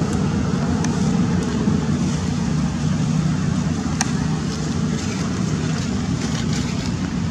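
Steady low engine rumble with a continuous hum, and a single sharp click about four seconds in.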